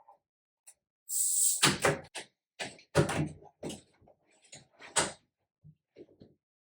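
Knocks and clunks of shower head and hose fittings being handled and fitted during installation, with a short hiss about a second in.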